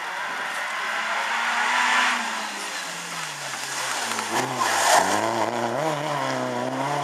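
Renault Clio rally car's engine coming on hard, its pitch falling as it brakes and shifts down into a corner about midway, then rising again with up-and-down revs as it accelerates away.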